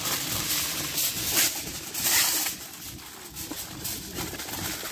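Aluminium foil crinkling and rustling as chicken is wrapped by hand, in irregular bursts, the loudest about a second and a half and two seconds in.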